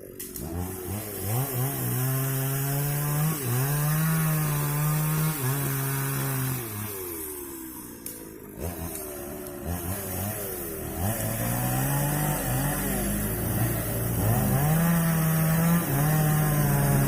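Chainsaw engine running at high throttle, its pitch rising and falling as it revs. The engine drops back for about a second roughly halfway through, then revs up again.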